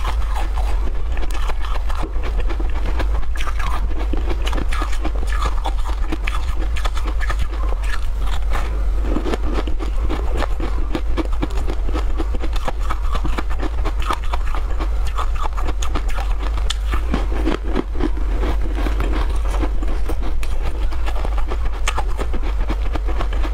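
Close-up eating sounds: a crisp treat being bitten and chewed, a dense run of crunches and small crackles, over a steady low hum.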